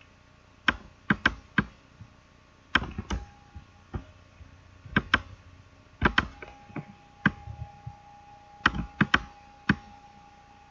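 Computer mouse buttons and keyboard keys clicking, sharp clicks at irregular spacing, often in pairs or threes. A faint steady tone comes in about six seconds in.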